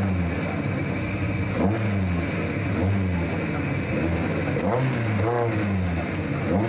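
Toyota MR2 AW11 engine revved repeatedly at a standstill, the pitch rising and falling every second or two as the throttle is blipped while waiting to launch.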